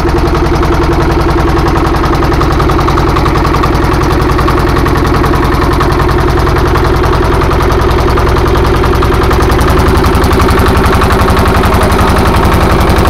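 Small wooden fishing boat's engine running steadily under way, a loud, fast and even pulsing.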